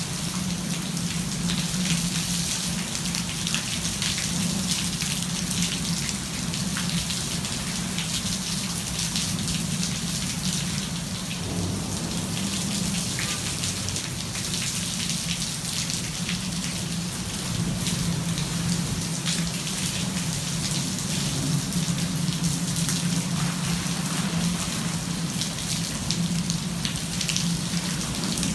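Heavy thunderstorm rain falling steadily, a dense hiss of countless drops, with a steady low hum underneath.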